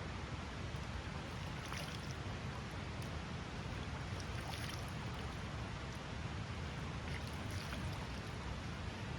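Steady rushing of a snowmelt stream, with a few faint, brief high-pitched sounds over it.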